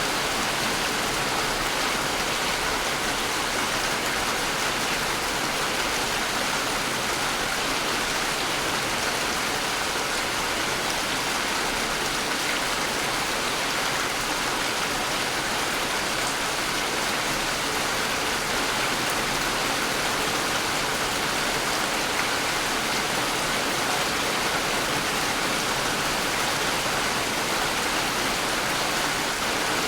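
Steady rain falling, an even continuous hiss of many drops.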